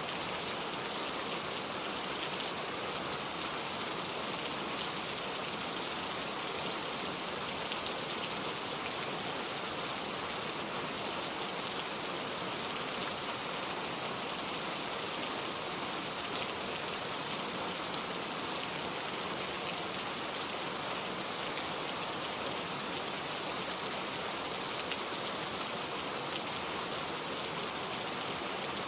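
Steady rain falling, an even hiss with many small drop patters, unchanging throughout.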